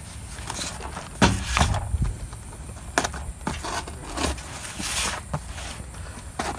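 Cardboard box being handled and worked open by hand: scattered scrapes, rustles and taps on the cardboard and tape, with a low bump about a second in.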